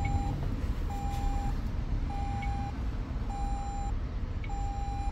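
Electronic warning beep inside a pickup's cab, one steady mid-pitched tone of about half a second repeating evenly every 1.2 seconds, over a low steady rumble.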